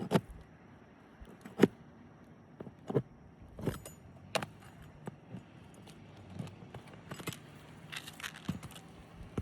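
Sharp metal clicks and knocks at irregular intervals, with light scraping: hand tools and nails clinking against asphalt roof shingles as the nails are pried out one by one. The loudest knock comes about one and a half seconds in.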